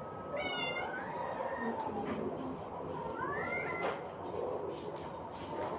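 Stray cat meowing twice: a short call about half a second in, then a longer one that rises and falls about three seconds in. A steady high-pitched whine runs underneath.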